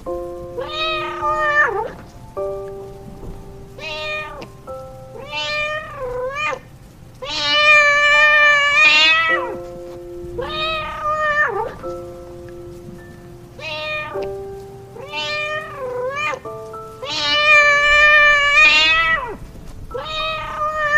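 A cat meowing over and over, about a dozen meows whose pitch rises and falls, two of them long and drawn out, over background music with held notes.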